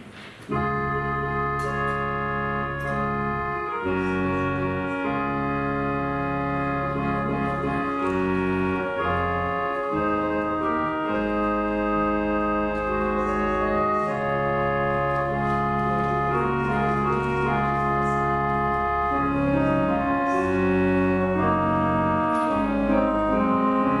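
Organ playing a postlude in sustained, held chords with a bass line, starting about half a second in.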